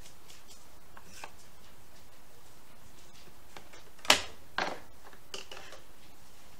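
Gloved hands working ground meat in a steel bowl, with a few faint clicks and squelches. About four seconds in comes a sharp knock, then a smaller one half a second later, as a burger press is handled and set down on the cutting board.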